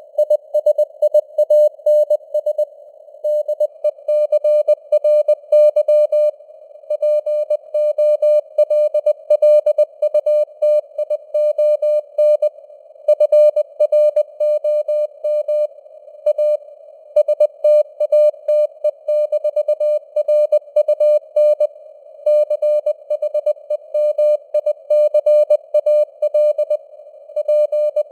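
Morse code (CW) at 20 words per minute: a single mid-pitched beep keyed on and off in quick dots and dashes, with short pauses between words. The beep sits in a narrow band of simulated radio hiss, and its strength rises and falls like a fading (QSB) shortwave signal.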